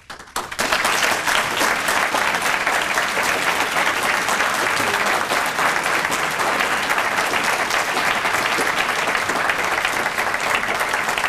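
Audience applauding: dense, steady clapping that starts about half a second in and keeps on at an even level throughout.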